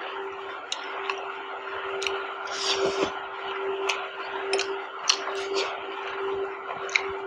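Close-miked eating of Maggi instant noodles: a fork clicking and scraping against a glass bowl as noodles are twirled, sharp ticks scattered through, with wet chewing and a breathy slurp-like rush about three seconds in. A steady low hum runs underneath.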